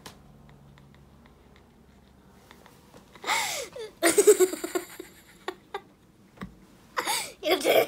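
A young child laughing in loud bursts of giggles, starting about three seconds in and coming again near the end.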